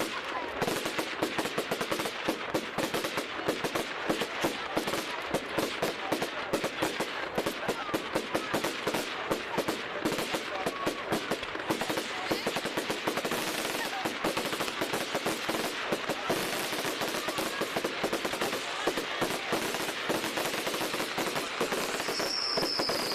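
Fireworks display: a dense, continuous crackle of rapid small bangs, like a machine-gun barrage. A short falling whistle comes near the end.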